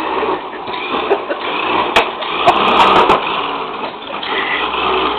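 Small electric motor of a toy RC car whirring steadily, with a sharp click about two seconds in and a quick cluster of clicks soon after.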